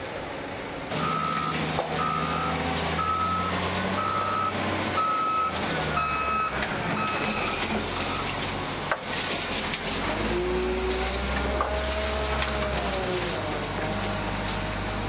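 Reversing alarm of a heavy earthmoving machine beeping at an even pace, about every three-quarters of a second, over its running engine; the beeps stop about eight seconds in. The engine then rises and falls in pitch as it works.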